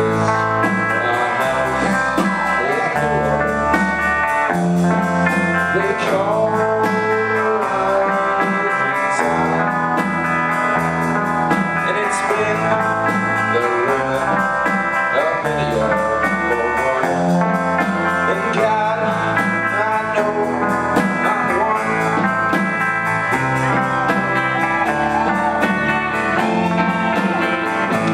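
A live rock band playing: electric guitars, bass guitar, keyboard and a drum kit keep a steady beat, with bending guitar lines over it.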